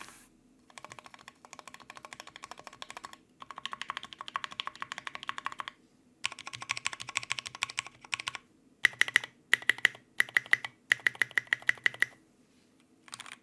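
Custom Tofu 60% mechanical keyboard with a brass plate, lubed Tealios v2 linear switches and Tai Hao keycaps being typed on fast, in bursts of rapid keystrokes with short pauses between them. In the last third the strokes come as louder, separate clusters before the typing stops.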